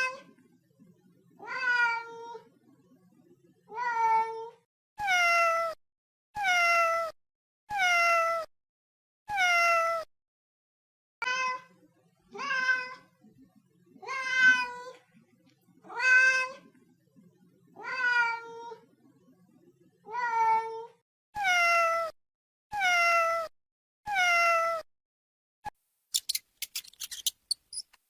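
A domestic cat meowing over and over, about sixteen separate meows, one every second or so, each dropping in pitch at the end. Near the end the meowing stops and a fast run of sharp ticks starts.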